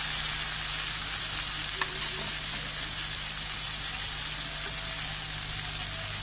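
Ground onion, tomato and spice masala sizzling steadily in oil in a kadhai as it is stirred with a spoon. The oil is starting to separate at the sides, the sign that the masala is fully fried. A steady low hum runs underneath.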